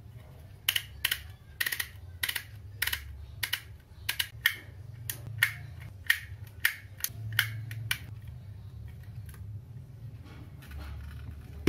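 Motex handheld emboss label maker clicking as letters are dialled on its wheel and pressed into the plastic label tape: a run of sharp clicks, many in close pairs, about two a second, stopping about eight seconds in.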